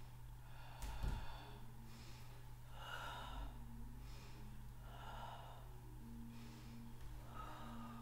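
A woman breathing audibly through a Pilates exercise, a loud breath about every two seconds, with a soft thump about a second in, over a steady low hum.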